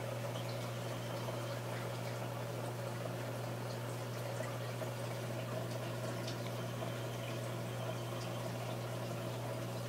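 Aquarium pump running: a steady low hum with water bubbling and trickling, and faint small ticks scattered through it.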